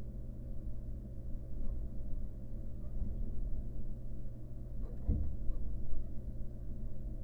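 Steady low electrical hum from the nest-box camera's microphone, with a few faint clicks and a brief scrape or rustle about five seconds in.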